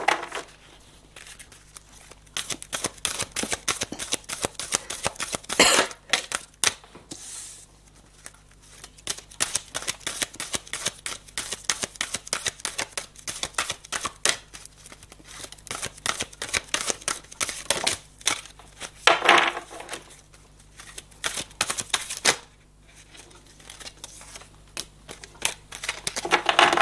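A deck of oracle cards being shuffled by hand: long runs of rapid, papery clicks and flicks, broken by a few short pauses.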